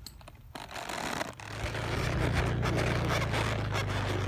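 Horse ridden at a walk, heard from the saddle: a steady low rumble of wind on the microphone sets in about a second and a half in, with scraping and rubbing of the new leather saddle and tack.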